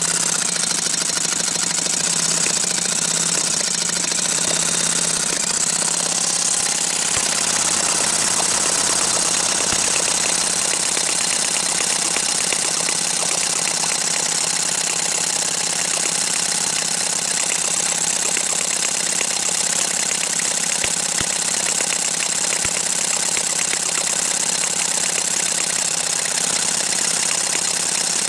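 Electric drill spinning a homemade rotary engine prototype, with fast, steady popping as the mixture fires on every or every other rotation. The engine does not run on its own, which the builder puts down to leaks into the carburetor and through the bearings from poorly made parts.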